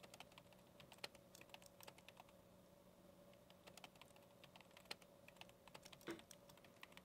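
Faint typing on a computer keyboard: irregular key clicks, a few every second.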